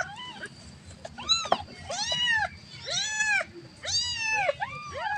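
Domestic cat meowing repeatedly, about five meows roughly a second apart, each rising and then falling in pitch.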